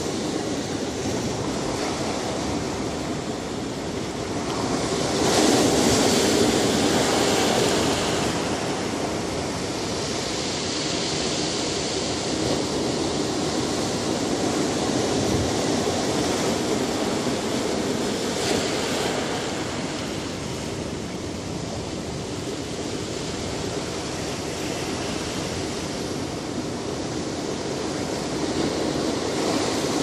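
Ocean surf: waves breaking and washing in a continuous rush. A louder surge builds about five seconds in and eases off by eight seconds, with smaller swells later on.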